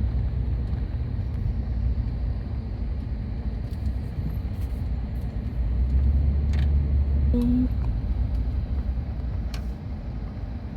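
A car driving, with a steady low road rumble that grows louder for a couple of seconds past the middle, and a few faint clicks.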